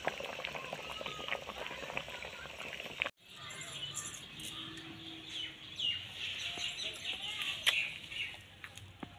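Eggs boiling hard in water in a metal wok, a dense bubbling crackle, until a sudden cut about three seconds in. After it, hens cluck and chirp while metal cookware clinks as it is handled, with one sharp clink near the end.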